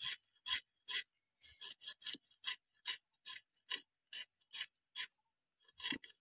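Small bele (goby) fish being scaled by dragging it against an upright boti blade: a steady run of short rasping scrapes, about two to three a second, with a brief pause about five seconds in.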